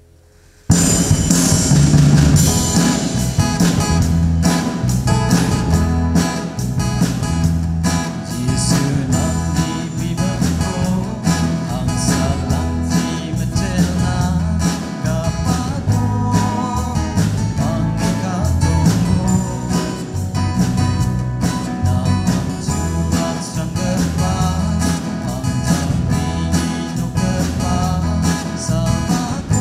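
Live worship band comes in together after a brief hush, less than a second in: a drum kit keeping a steady beat, acoustic guitars strumming and a keyboard, with a man singing the song's melody.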